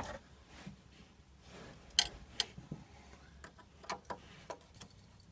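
A tool working the metal clip on the lower turbo hose of a diesel Alfa Romeo, giving a scatter of sharp, irregular clicks and ticks, the loudest about two seconds in.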